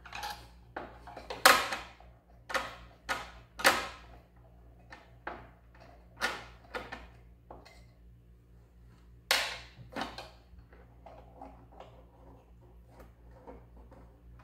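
Irregular clicks, taps and knocks of small hardware being handled and fitted by hand at the steering linkage inside an RC hydroplane's wooden hull, the sharpest tap about a second and a half in. A faint steady low hum runs underneath.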